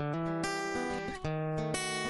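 Music played on acoustic guitar: strummed chords, with a new chord struck every half second or so.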